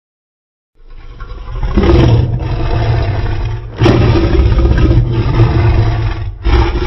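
A home-made recreation of a Godzilla roar: a loud, deep, rumbling roar that starts about a second in and swells in several long sections, each breaking off briefly before the next.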